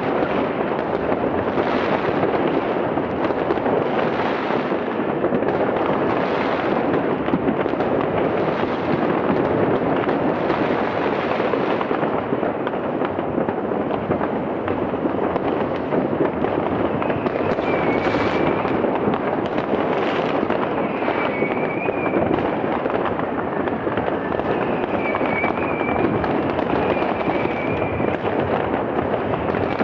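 Many fireworks rockets and firecrackers going off at once, their bangs and crackle merging into a steady, dense din. In the second half, short high whistles come every few seconds.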